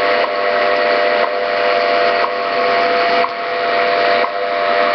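WWV time-signal broadcast received on shortwave through a portable Optimus multiband radio's speaker. A steady tone sits under heavy static hiss and is broken by a short tick once a second. The static is extra interference that the owner puts down to a computer running close by.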